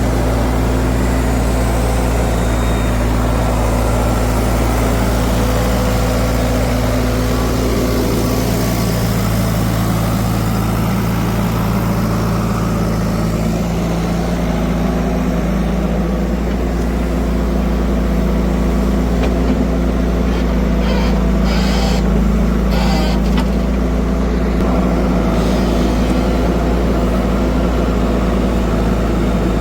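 Engine running steadily with a deep hum; its note changes about halfway through. A few short knocks come about two-thirds of the way in.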